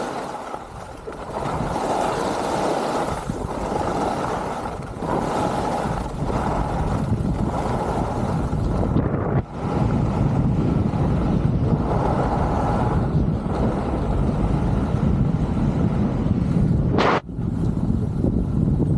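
Wind rushing over a helmet-mounted microphone, with the hiss and rumble of skis sliding over groomed snow on a downhill run. The noise drops out briefly twice, about halfway through and near the end.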